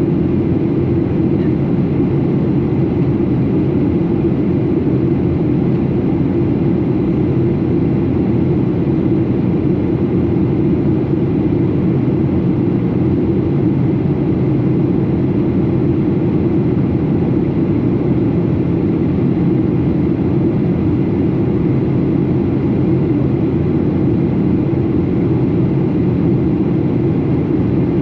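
Steady drone of a Boeing 737 in flight, heard from the passenger cabin: a low rumble of engines and rushing air that holds level without change.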